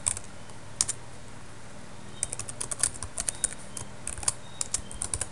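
Typing on a computer keyboard: quick runs of key clicks in uneven bursts with short pauses between them.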